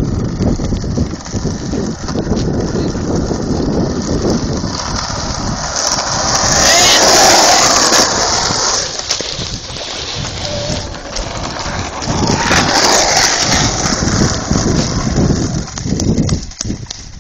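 Skateboard wheels rolling over an asphalt path with a continuous rumble, broken by two louder rushes of noise, one about a third of the way in and one about three quarters through.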